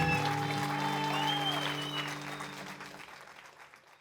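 A band's last chord rings out, with the lowest notes dropping away at once and the rest fading. Audience applause and a couple of high whistles run over it, and everything fades down to near silence.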